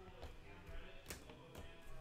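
Faint background music, with three soft clicks in the second half.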